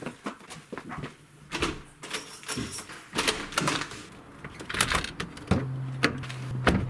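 Irregular knocks and clicks, with a low steady hum heard twice for a second or so.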